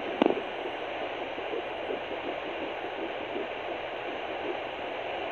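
A handheld fetal doppler's steady static hiss with a faint pulsing whoosh in it, which the user takes for the baby's heartbeat at eight weeks. A brief sharp click sounds just after the start.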